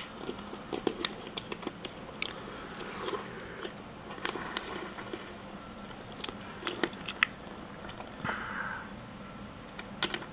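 Small die-cast toy crane handled on a hard table top: scattered light clicks and taps as fingers grip the metal body and plastic boom and its wheels knock on the surface.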